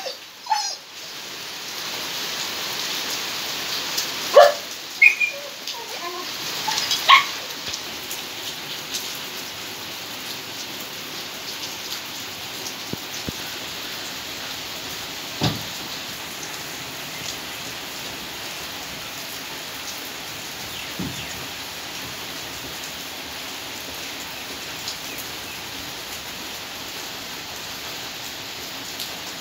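Steady rain falling on wet paving and puddles. A few short animal calls sound between about four and seven seconds in.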